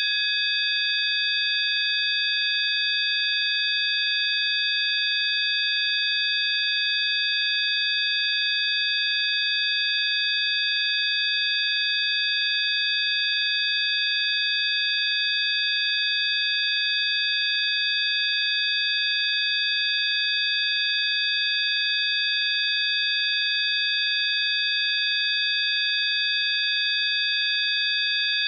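Synthesized 'healing frequency' tone track: several high-pitched electronic sine tones held together, steady and unchanging, over a faint hiss.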